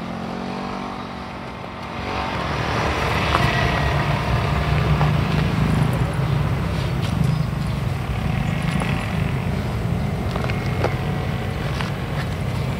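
Motorcycle engine running on the road, a steady low hum that grows louder about two seconds in.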